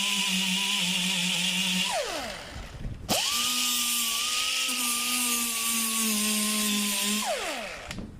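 Pneumatic angle die grinder with an 80-grit sanding disc, grinding off rust spots on car bodywork. It whines with an air hiss, winds down about two seconds in, starts again a second later, and winds down again near the end.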